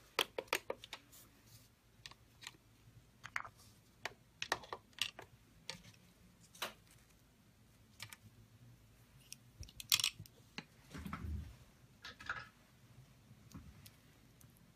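Scattered light clicks and taps at irregular intervals as small nail-art items such as a gel pot and brush are handled and set down on a desk, with a short, dull low thump about eleven seconds in.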